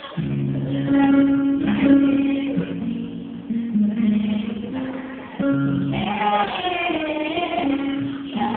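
Voices singing a slow song of long held notes over instrumental accompaniment.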